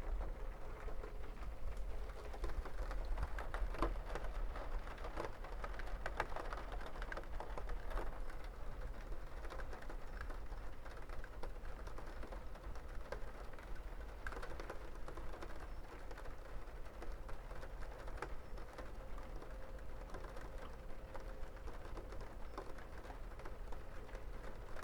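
Rain falling, many individual drops pattering and ticking on a surface in an irregular patter, over a low rumble.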